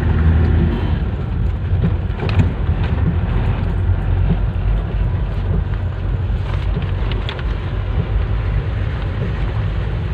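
Steady low road and engine rumble heard inside a moving vehicle's cabin.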